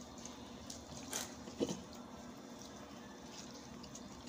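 Faint wet squishing and a few soft clicks as hands stuff filling into raw whole chickens.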